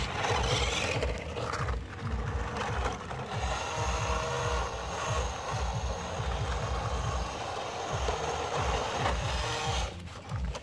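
Remote-control toy Hummer 4x4 truck's small electric motor and gears whirring steadily as it drives over dirt, stopping about ten seconds in. An irregular low rumble runs underneath.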